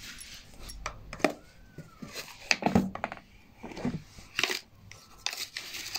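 Metal spoon tapping and scraping against a plastic mixing bowl while spices are tipped into yogurt: a scattered series of light clicks.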